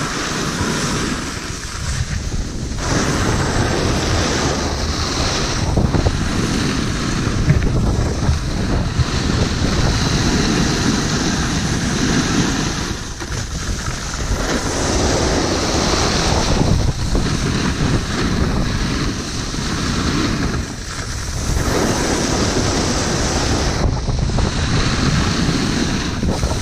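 Wind rushing over the microphone of a pole-mounted action camera, mixed with a snowboard sliding and scraping over snow; the noise swells and eases every few seconds, with short dips about two, thirteen and twenty-one seconds in.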